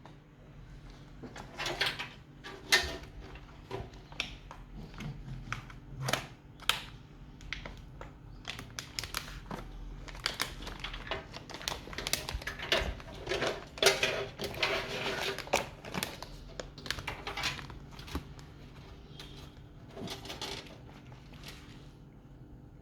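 Hands handling a graphics card during a PC build: irregular clicks, knocks and taps with bursts of rustling, loudest around a third and two thirds of the way through.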